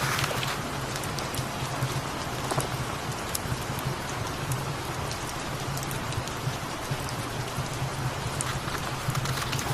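Steady rain falling on a surface, layered with a cat's low, pulsing purr and occasional sharp crackles from a wood fire.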